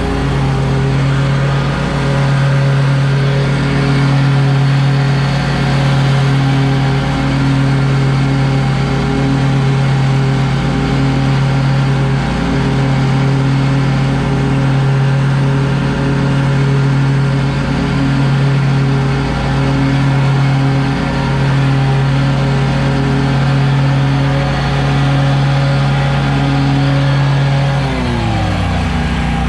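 Exmark stand-on commercial mower's engine running steadily under load while mowing, with the blade deck spinning. About 28 seconds in, its pitch drops as the engine slows.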